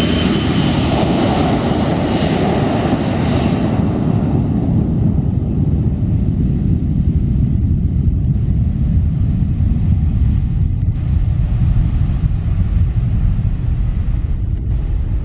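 Boeing 737 airliner's turbofan jet engines at takeoff thrust on the takeoff roll: a loud, steady rumble whose higher hiss fades about four seconds in as the jet moves off down the runway.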